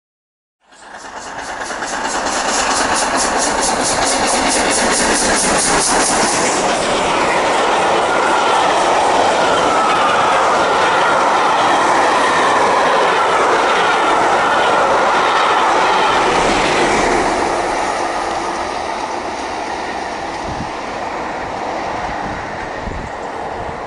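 Passenger train carriages rushing past close by at speed, the wheels clattering rapidly over the rail joints. The noise eases from about two-thirds of the way through as the train draws away.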